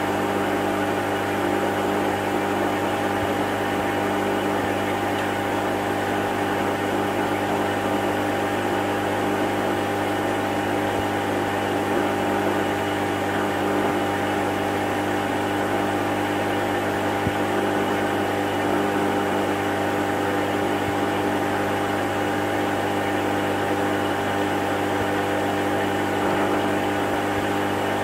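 Aquarium pump humming steadily, a constant mains-driven drone with a low hum and a few higher tones over a light hiss.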